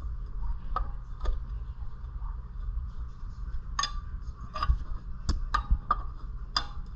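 Light metallic clinks and taps of hand tools against the small engine's flywheel and parts, about eight scattered strikes, over a steady low hum.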